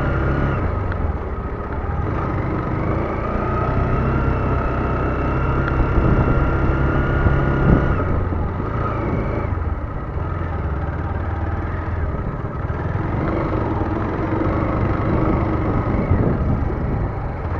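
Lifan KPT motorcycle engine running under way, its revs rising and falling.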